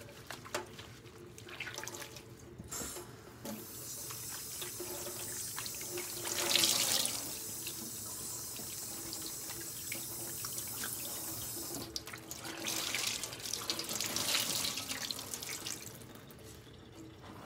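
Kitchen faucet running into a stainless steel sink while a microfiber cloth is rinsed and squeezed under the stream. The water comes on about three seconds in and runs steadily, with louder splashing surges as the cloth is worked, then eases off near the end.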